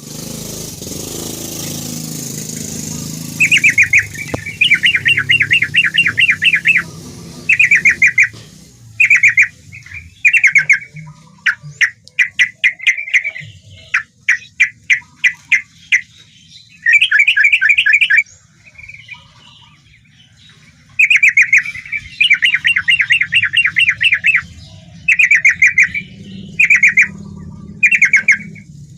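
Yellow-vented bulbul (trucukan) singing: repeated loud phrases of rapid chattering notes, each lasting one to three seconds, with short pauses between. Only a hiss is heard for the first few seconds before the song begins.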